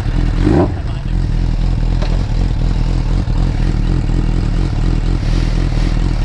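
Motorcycle engine running steadily just after being started, a low, even rumble.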